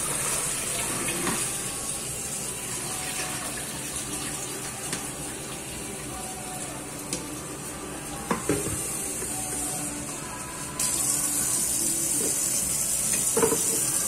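Kitchen mixer tap running steadily into a stainless steel sink as shellfish are rinsed and drained in a metal colander; the water hiss grows louder about eleven seconds in. A few short clinks of the colander and shells come around eight seconds in and near the end.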